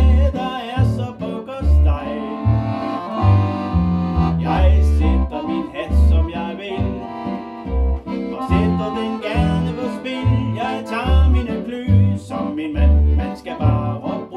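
Piano accordion playing an instrumental passage: a melody on the right-hand keys over a steady beat of left-hand bass notes and chords.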